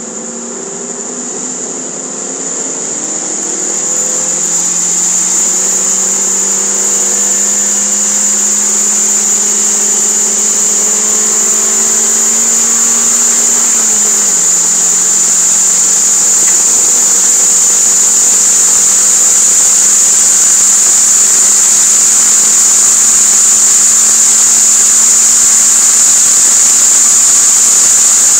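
Mid-mounted 1.8-litre four-cylinder engine of a Toyota MR2 Spyder, heard from inside the car, pulling hard under acceleration to over 100 mph. The engine note gets louder over the first few seconds and climbs in pitch, drops once about halfway through at a gear change, then climbs slowly again over a steady high hiss.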